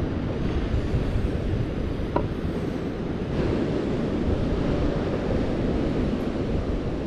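Wind buffeting the microphone over the steady wash of ocean surf below the pier.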